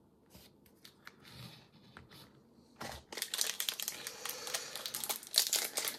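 Crinkling plastic wrapping on a small alcohol ink bottle being handled: a few light crackles at first, then dense crinkling from about three seconds in.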